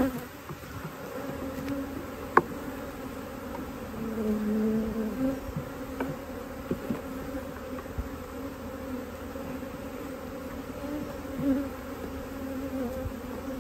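Honey bees buzzing in a steady hum around an opened hive. The hum swells for about a second roughly four seconds in, and a few sharp knocks sound through it.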